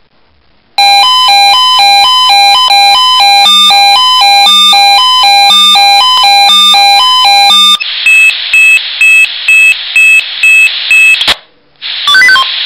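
Swissphone Quattro XL+ fire-brigade radio pager sounding its alert for a monthly test alarm: a loud, fast melody of alternating tones for about seven seconds, then a run of short beeps about two and a half a second, a brief pause, and a new beeping pattern starting near the end.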